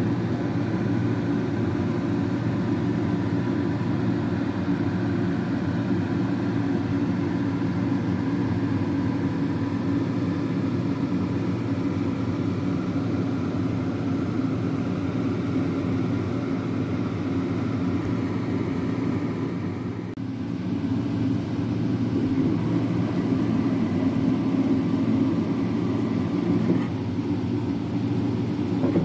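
Steady machine running: a continuous low motor hum with a few steady tones, dipping briefly about two-thirds of the way in.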